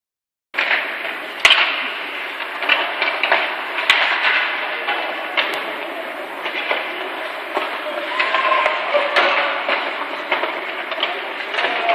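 Ice hockey game sound in an arena: skates scraping across the ice, with a few sharp clacks of sticks and puck and faint voices echoing in the hall. The sound cuts in about half a second in.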